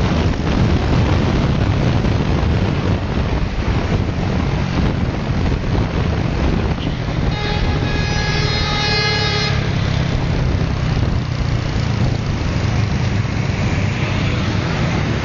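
Wind buffeting the microphone over motorcycle engine and road noise at riding speed. About seven seconds in, a vehicle horn sounds steadily for about two seconds.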